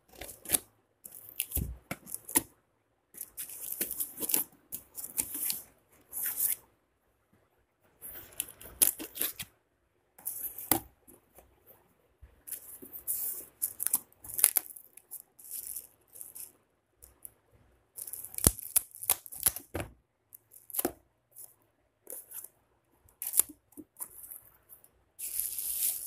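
Packing tape being slit and torn off a cardboard shipping box in short, irregular bursts with brief pauses. Cardboard flaps and bubble wrap rustle as the box is opened, with a longer rustle near the end.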